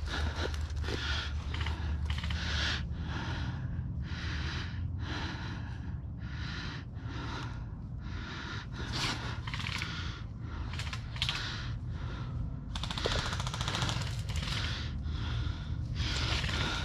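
Airsoft guns firing in rapid bursts, about two bursts a second, over a steady low rumble.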